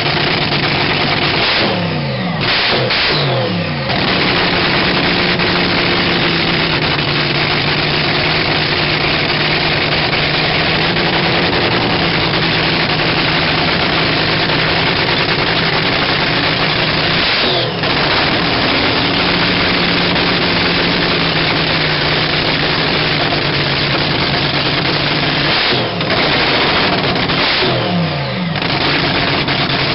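Supercharged Daimler hemi V8 in a vintage dragster running on nitromethane, loud and steady, with short blips of the throttle about two seconds in, again just past halfway, and twice near the end.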